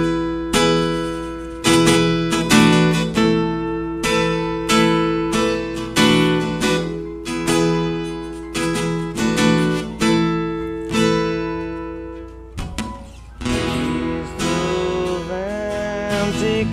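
Acoustic guitar playing a slow song intro, a picked chord struck about once or twice a second, with a short break about twelve seconds in. Over the last few seconds a held, bending melody line joins the guitar.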